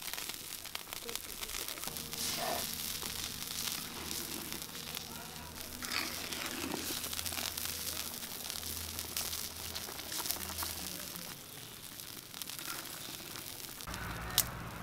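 Fish curry bubbling and sizzling in a pan, a steady dense crackle of popping bubbles. A single sharp click near the end.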